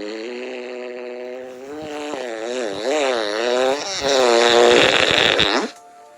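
Cartoon fart sound effect: one long, drawn-out pitched fart lasting about five and a half seconds, wavering up and down in pitch midway, getting louder near the end, then bending upward and cutting off suddenly.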